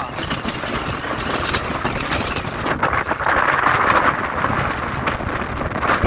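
Strong gusting wind buffeting the microphone: a rough rushing noise that swells and eases, strongest a little past the middle.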